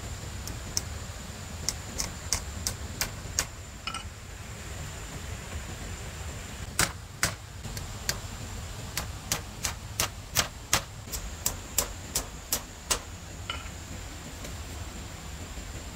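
Sharp knocks of a tool striking wood, in two runs: a sparse run of about eight strikes, then after a pause of a few seconds a quicker run of about three strikes a second.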